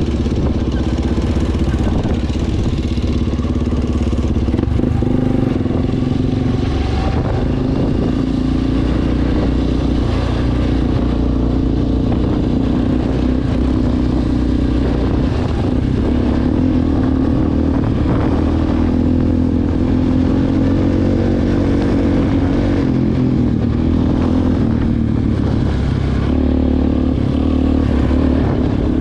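ATV engine running steadily, loud and close, at a fairly even speed with small changes in pitch.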